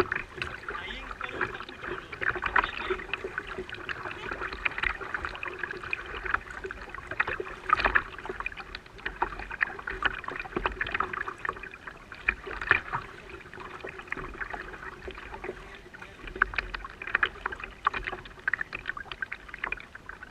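Water splashing and sloshing irregularly around a moving fishing kayak, with a faint steady hum underneath.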